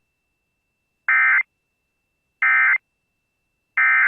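Emergency Alert System end-of-message data tones: three short, identical bursts of warbling digital data squawk, evenly spaced a little over a second apart.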